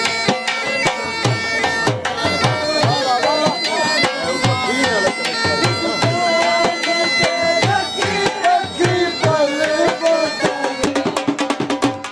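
Bagpipe playing a wavering folk melody over steady drones, with a dhol beating a steady rhythm for jhumar dancing. Near the end the drumming speeds up into rapid strokes.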